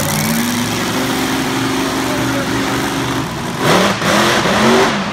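Monster truck engine running steadily, then revving hard in rising surges about three and a half seconds in, as the truck drives up onto a crushed car. Loud bursts of noise come with the revs.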